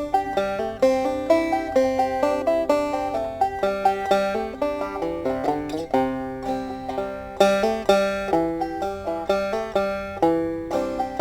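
Banjo played clawhammer style: a solo tune of quickly plucked notes in a steady, bouncing rhythm, each note struck sharply and fading fast.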